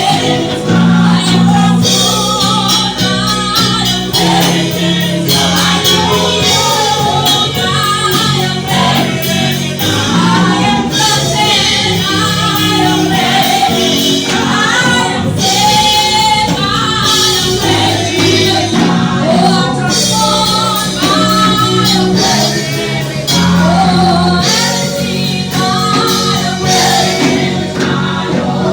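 Choir singing a gospel worship song, with female voices to the fore, over a band with bass and a steady beat.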